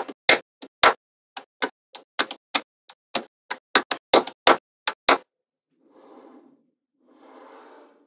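Magnetic balls clicking sharply as slabs of them are snapped onto a wall of magnetic balls: a quick, irregular run of clicks that stops about five seconds in. Two soft, brief rustles follow.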